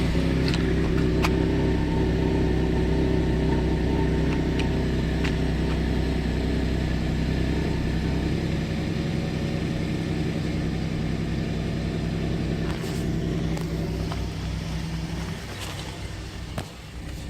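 2012 GMC Acadia's 3.6L V6 idling roughly on a cold start, a steady drone that weakens and gets quieter near the end. The rough running comes from a random misfire that sets no trouble code but makes the check-engine light blink.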